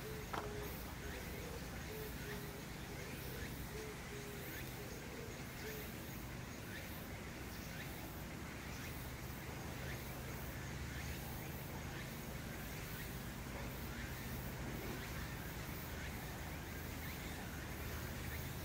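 Outdoor background ambience: a steady low hum and haze with scattered faint chirps, and a short tone repeating about twice a second in the first few seconds.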